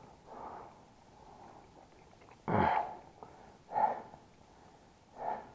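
Heavy breathing close to the microphone: a few loud, short exhales about a second or so apart. The loudest comes about two and a half seconds in and starts suddenly.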